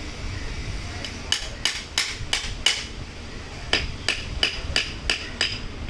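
Hammer striking metal in two quick runs of about five and six blows, roughly three a second, each with a short metallic ring: riveting new lining onto a drum-brake shoe.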